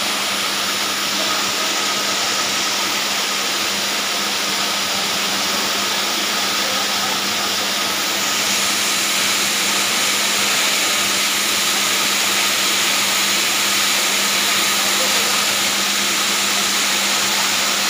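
Fire sprinkler water-spray system discharging under test: a steady, loud hiss of spraying water with a steady low hum underneath, growing a little louder about eight seconds in.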